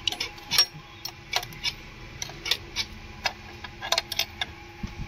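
A dozen or so light clicks and taps at uneven spacing over a faint steady hum, with no engine running.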